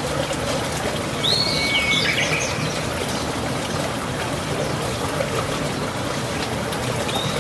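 Steady rainfall, an even hiss, with songbirds calling over it: a burst of chirps and whistles a little over a second in, and another call near the end.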